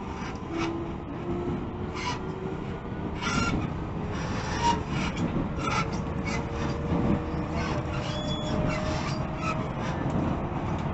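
JR Central 313 series 0-subseries electric train heard from on board: a motor whine rising slowly in pitch as the train picks up speed, under a constant run of rubbing, rasping and rattling noises and scattered clicks. This is the abnormal noise the rider finds frightening and unpleasant.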